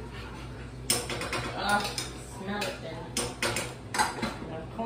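Kitchen clatter: a run of sharp clinks and knocks from dishes and utensils being handled, starting about a second in, over a steady low hum.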